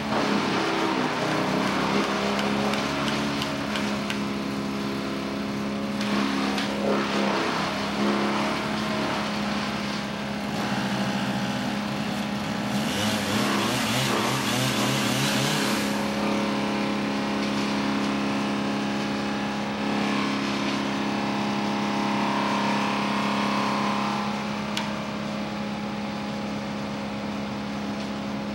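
Wood chipper engine running steadily at a constant speed. It grinds harshly for about three seconds around the middle as material is fed through and shredded.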